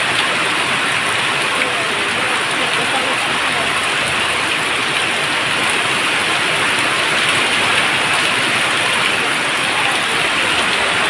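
Steady rain falling, an even hiss that holds at one level without a break.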